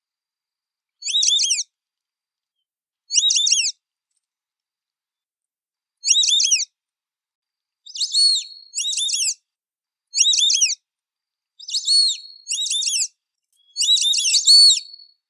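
White-faced whistling duck (irerê) giving its high whistled call: short phrases of a few quick slurred whistles, repeated about nine times, coming faster in the second half.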